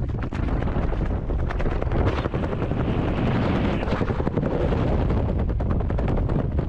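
Wind rushing and buffeting hard on a helmet camera's microphone during a parachute descent. It makes a dense, steady rumble with rapid crackling pops throughout.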